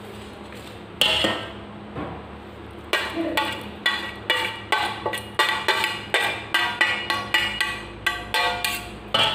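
Stainless-steel plate and bowl clinking as chopped greens are tapped and scraped off the plate into the bowl of pork: one knock about a second in, then a quick run of ringing metal clinks, about three a second, from about three seconds in.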